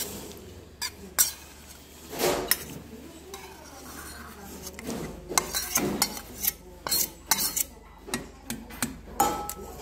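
Metal spoon scraping rice out of a stainless steel bowl into a pot of soup, then stirring it in. There are a few sharp clinks of spoon on bowl at first and a scrape about two seconds in, then a quick run of clinks in the second half.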